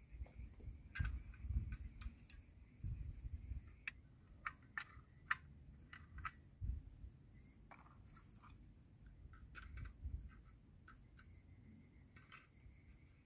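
Irregular small metal clicks and taps as a compact folding camping stove and its pot supports are handled, set down and picked up, with dull knocks. Crickets trill faintly in the background, most clearly at the start and near the end.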